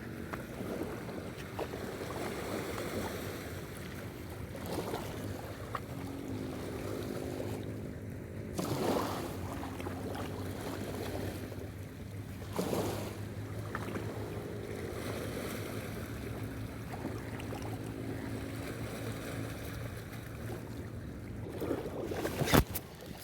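Waterside ambience: wind on the microphone and moving water over a steady low motor hum, likely a boat engine out on the water. A sharp knock sounds near the end.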